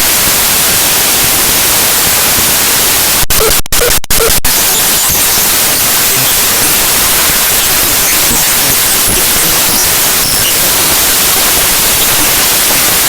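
Loud, harsh static hiss: a flag image file's raw data played back as audio by Binary Waterfall. It is broken by a few short dropouts about three to four seconds in.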